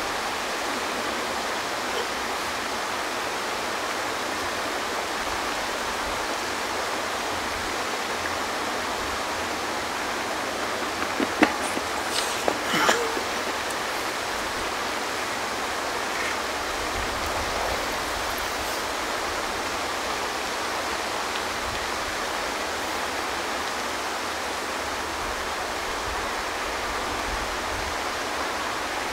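Steady rushing noise with no clear source, even and unbroken, with a few short knocks and a brief louder rustle about a dozen seconds in.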